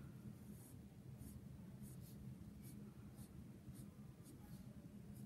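Faint scratching of a pencil on paper, a run of short quick strokes about two a second as eyelashes are drawn.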